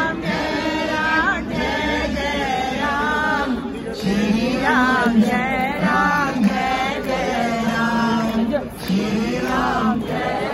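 A group of men and women singing a devotional chant together in unison.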